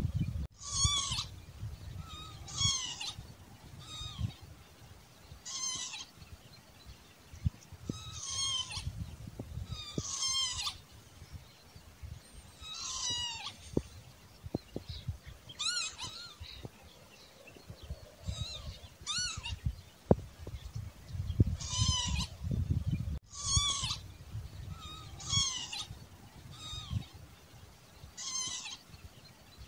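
Northern lapwing giving its wheezy, slurred 'pee-wit' call over and over, about one call every two seconds, over a low rumble.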